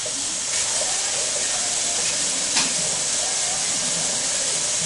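Skillet of meatballs in onion gravy sizzling steadily on a gas burner, with one short click about two and a half seconds in.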